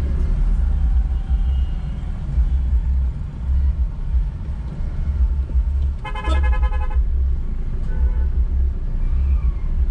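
Steady low road and engine rumble of a car driving through slow city traffic. About six seconds in, a vehicle horn honks for about a second, and a shorter, fainter toot follows about two seconds later.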